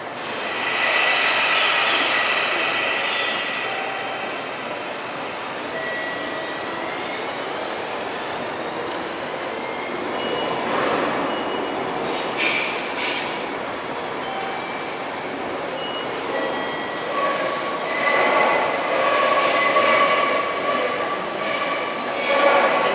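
Tobu Ryomo limited express electric train pulling out of the platform and running away slowly, its wheels squealing in high tones. It is loudest as it starts moving, about a second in.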